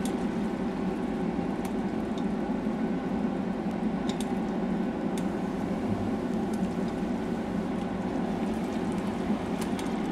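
Cream sauce bubbling steadily in a stainless steel frying pan, with scattered small pops.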